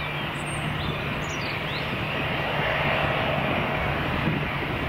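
Boeing 787 jet engines at full power as the airliner climbs away after takeoff: a steady, broad rumble that grows a little louder about three seconds in.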